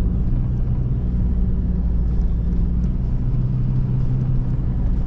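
Car driving along a highway, heard from inside the cabin: a steady low rumble of engine and road noise.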